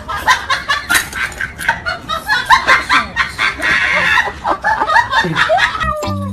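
Husky whining and yelping in a rapid run of short, wavering high cries, ending in a longer falling whine near the end.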